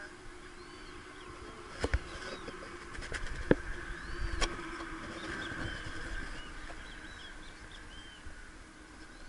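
Small birds chirping with many short arched calls over a steady faint background hum. A few sharp knocks come from the handheld camera being moved, the loudest about two, three and a half and four and a half seconds in.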